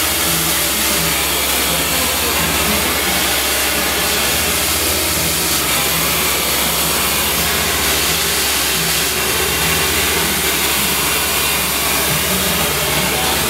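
Handheld corded hair dryer running steadily at one speed while hair is blow-dried, a continuous even rush of air with a low hum beneath it.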